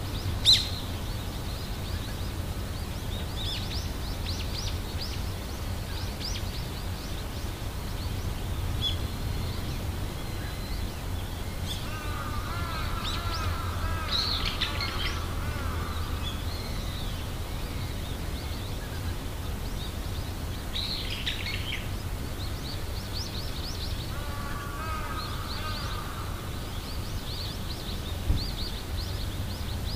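Birds chirping and calling, with high short chirps scattered throughout and two longer warbling bouts, over a steady low outdoor rumble. A sharp click sounds about half a second in.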